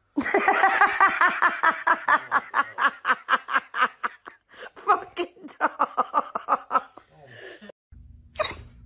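A person laughing hard, a quick run of short "ha"s about five a second, trailing off after some seven seconds. Near the end a low steady hum comes in.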